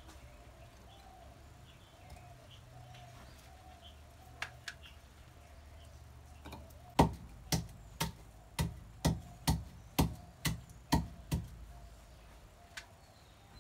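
Wooden pestle pounding garlic cloves in a wooden mortar: about ten sharp knocks, roughly two a second, starting about halfway in, after a few light clicks.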